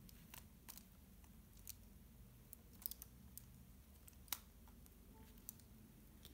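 Faint, scattered clicks of a Rubik's Snake's plastic wedge segments being twisted and snapped into position, at irregular moments; the sharpest comes about four seconds in.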